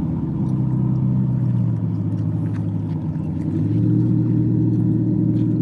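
A motorboat's engine running steadily, its pitch rising a little and getting louder about three and a half seconds in.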